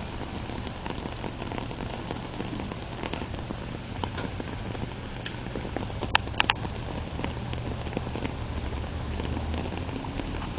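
Steady rain, with many small drops ticking close by over a low rumble. Three sharp clicks come about six seconds in.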